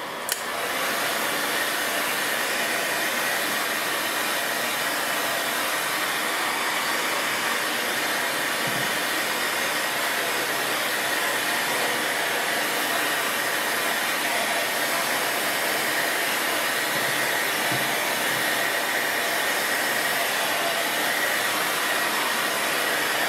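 Stanley electric heat gun blowing steadily: an even hiss of hot air with a faint high tone, held on a plastic bottle to heat-shrink it.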